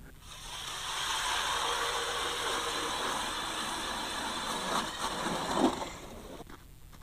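Ice auger boring a hole through the lake ice: a steady grinding run that starts just after the beginning and stops about a second before the end.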